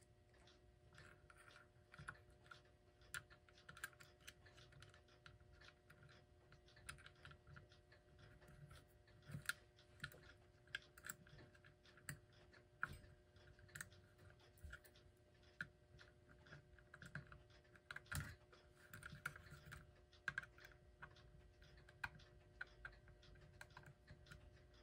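Faint, irregular clicks and taps of small metal clock parts being handled as a retaining clamp is fitted over the rotor of an electric clock motor, with a few slightly sharper clicks now and then.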